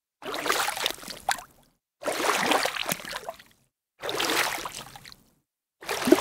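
Foley water splashing in four separate splashes, each about a second long and fading out, spaced about two seconds apart with silence between.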